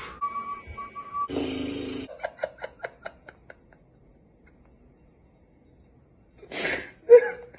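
A man laughing: a breathy burst of laughter, then a quick run of 'ha-ha-ha' pulses that fade out a few seconds in, followed after a pause by a short exhale and one brief loud vocal sound near the end.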